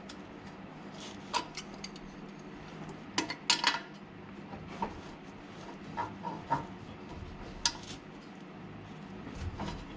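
Hand tools clinking and tapping on metal in scattered single knocks, a small cluster about three and a half seconds in, while a worn driveshaft U-joint is being worked out of its yoke.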